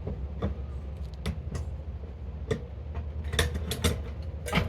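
Irregular sharp clicks and knocks of metal parts being handled, bunched toward the end, over a low steady hum.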